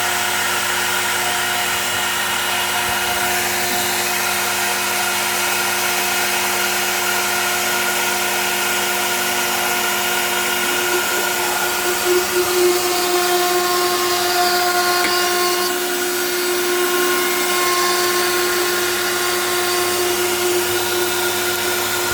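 Home-made CNC router's spindle running steadily as it mills a wooden clamp: a steady whine of several tones over a continuous hiss, a little louder about halfway through.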